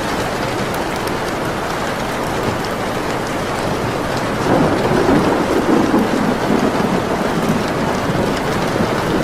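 Steady heavy rain with a roll of thunder swelling up about halfway through and rumbling for a few seconds, with scattered small crackles from a wood fire.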